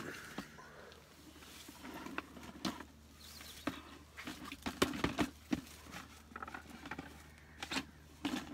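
Scattered clicks, light knocks and rustling from plastic bait gear and boilies being handled.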